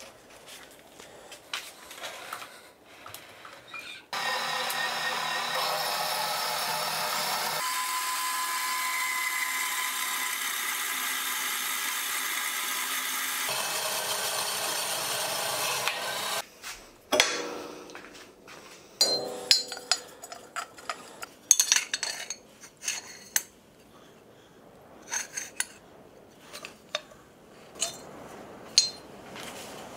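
Homemade metal-cutting band saw running steadily for about twelve seconds as its blade cuts through a steel square tube, the sound changing partway through the cut. Before it come a few light clicks; after it stops, sharp clinks and knocks of the steel tube and cut pieces being handled.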